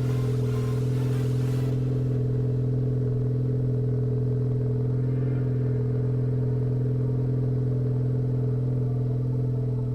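2017 Ford Focus ST's turbocharged 2.0-litre four-cylinder running at steady revs through a Borla Touring cat-back exhaust, a constant low tone that holds one pitch. A light hiss in the upper range drops away about two seconds in.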